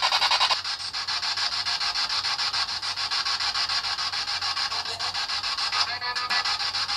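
Ghost box (spirit box) radio sweeping through stations: static chopped into a rapid, even pulsing. About six seconds in, a brief snatch of sound comes through that is taken for the word "higher".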